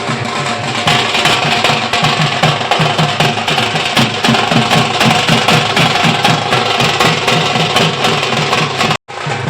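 Drumming and percussion playing a fast, steady beat, loud and dense; it cuts out for an instant near the end and starts again.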